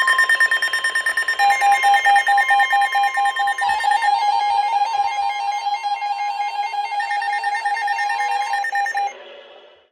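Several weather radio receivers alarming at once: overlapping beeping and warbling alert tones over the steady 1050 Hz NOAA Weather Radio warning alarm tone, all cutting off about nine seconds in. The alarm heralds a severe thunderstorm warning.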